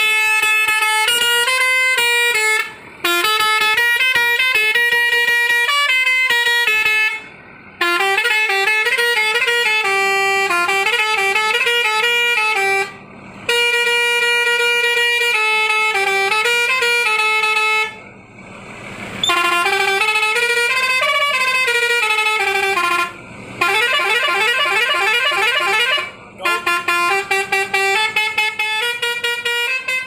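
Indian truck's multi-tune musical horn, worked from a push-button selector box, playing a string of tunes one after another in a loud, buzzy horn tone. Stepped melodies come first, with short breaks between tunes. After the halfway point they give way to wavering siren-like glides and fast up-and-down warbling sweeps.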